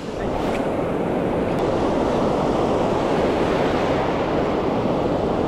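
Ocean surf washing in over the sand in a steady rush, with wind noise on the microphone.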